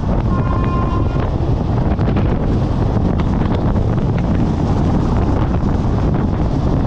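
Passenger express train running, with a steady rumble and wind buffeting the microphone. A brief high tone sounds just after the start.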